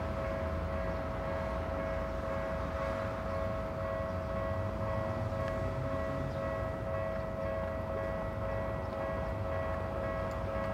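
Japanese level-crossing warning alarm ringing continuously as a steady electronic two-tone bell, signalling that a train is approaching and the barriers are down.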